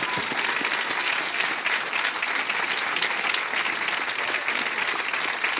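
Studio audience applauding: many hands clapping in a steady, dense patter.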